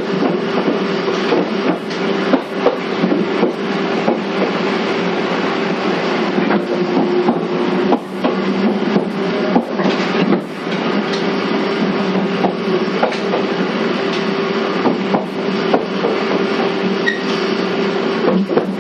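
485-series electric train running, heard from inside the motor car: a steady hum over rolling noise, with the wheels clicking irregularly over rail joints.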